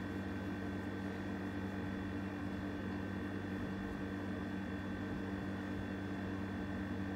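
Steady machine hum with a light hiss, holding several fixed tones that do not change.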